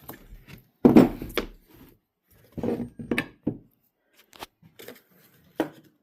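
Plastic wrap crinkling and rustling as the saran-wrapped debarker head is handled, in irregular bursts, with a low knock about a second in and a sharp click later.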